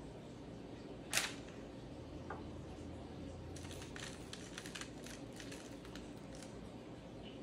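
One sharp tap about a second in as a strawberry is dipped in the bowl of melted chocolate. From about three and a half seconds in come soft rustling and light ticks as a chocolate-coated strawberry is set down on paper.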